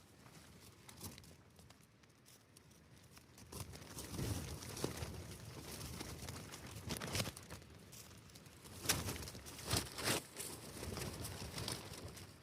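Tent fabric crinkling and flapping as strong gusts of wind buffet it, heard from inside the tent. The wind picks up a few seconds in, and there are several sharp snaps of the fabric between about seven and ten seconds in.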